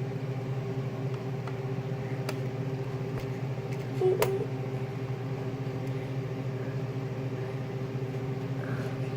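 A steady mechanical hum in the room, with a few sharp clicks of plastic Lego pieces being handled and pressed together: three clicks, about two seconds apart.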